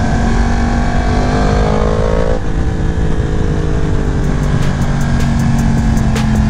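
Inline-four sport motorcycle engine pulling hard under acceleration, with wind noise. The pitch climbs, drops sharply about two and a half seconds in as it shifts up a gear, then climbs slowly again.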